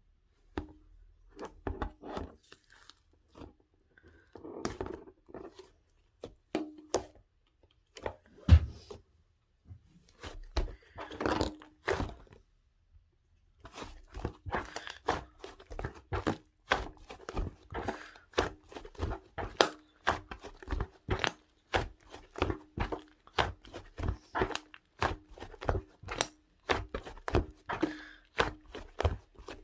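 Slime being mixed and kneaded by hand: irregular sticky clicks, pops and crunches. After a short pause about halfway through, they come as a steadier run of two or three clicks a second.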